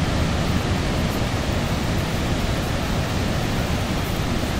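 Steady roar of Niagara's Horseshoe Falls: an even, unbroken rush of falling water, heaviest in the low end.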